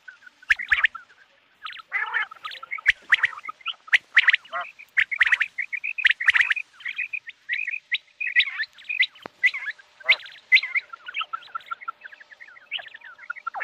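Common quail calling: a dense run of short, high chirps and trills with only brief gaps.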